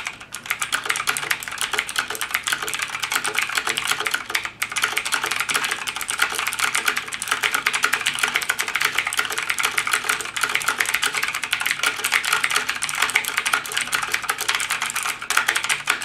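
Rapid typing on an ACGAM 104-key mechanical keyboard with clicky Outemu blue switches: a dense, continuous clatter of key clicks, with a brief break about four and a half seconds in.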